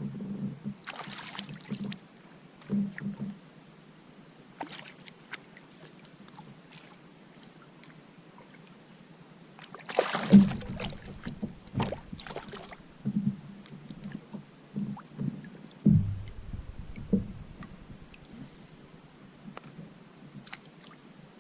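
Sounds of kayaking: irregular knocks and splashes of paddle and gear against a kayak hull, with a louder cluster of knocks about ten seconds in.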